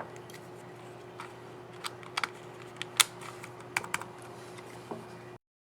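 Scissor-switch keys on an HP Chromebook X360 14 G1 laptop keyboard clicking as they are pressed: about ten sharp, irregular clicks, the loudest about halfway through, over a steady low hum. The sound cuts off suddenly near the end.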